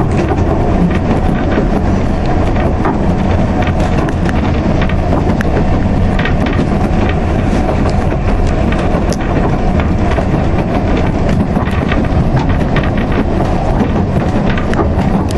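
Steady rumble and rattle of a moving narrow-gauge steam railway carriage, its wheels running on the rails, with many small clicks and knocks throughout.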